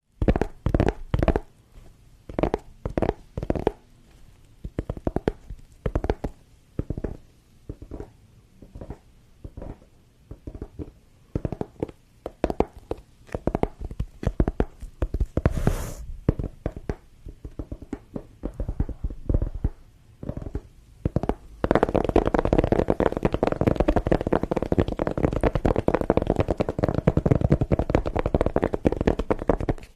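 ASMR tapping on a case: crisp separate taps in uneven clusters, with a brief scraping hiss near the middle. About two-thirds of the way through, the tapping turns into a fast, continuous flurry.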